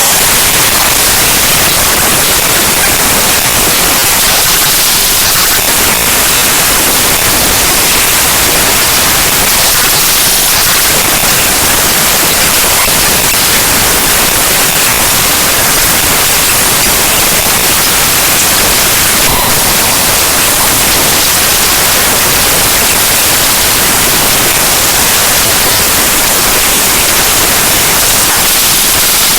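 Raw binary data of the Windows File Explorer program played directly as audio, a loud, steady, harsh static hiss heavier in the treble, with no tone or beat.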